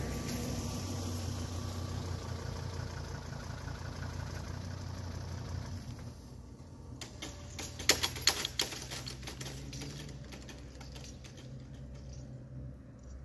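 BÜE 72 level-crossing barriers lowering, their drives giving a steady low hum. A cluster of sharp clattering knocks comes about eight seconds in as the booms come down.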